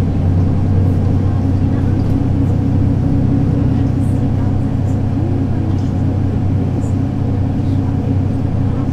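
Mercedes-Benz O 530 Citaro city bus's diesel engine running at a steady, even pitch, heard from inside the rear of the bus.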